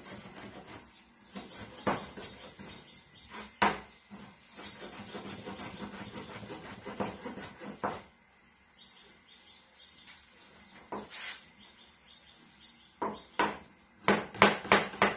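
Kitchen knife cutting on a plastic chopping board: scattered knocks and scraping strokes, then a quick run of chops near the end.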